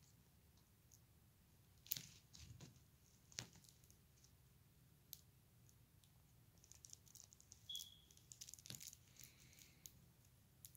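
Near silence: quiet room tone with a few faint scattered clicks and soft rustles, and one brief high squeak about three-quarters of the way through.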